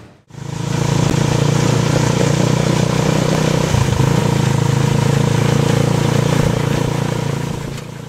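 Three-wheeled motorcycle taxi's small engine running steadily while riding, heard from on board, with a brief jolt about four seconds in.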